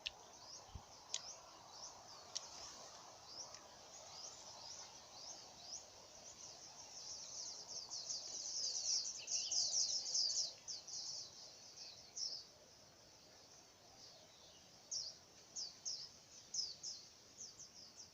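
Wild birds chirping: a run of short, high chirps that grows dense about eight to eleven seconds in, then scattered chirps again near the end.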